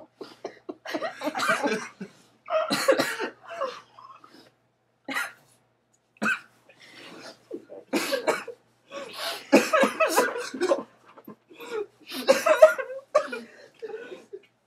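Several young people's wordless vocal outbursts of dismay, sobbing, wailing and gasping in irregular bursts broken by short silences, with the densest run about halfway through.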